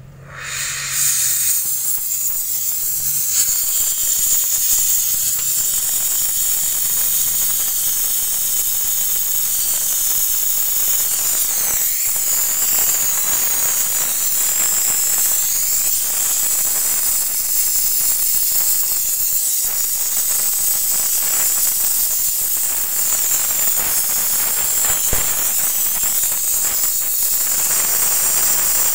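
Gas brazing torch burning with a steady hiss as a copper refrigerant line on a refrigerator is brazed. The hiss comes up within about the first second and then holds steady.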